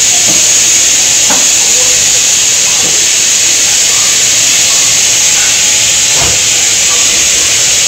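Steady, loud hiss of compressed air escaping from the train's air-brake pipework, with a couple of faint metallic knocks as the coupling gear is handled.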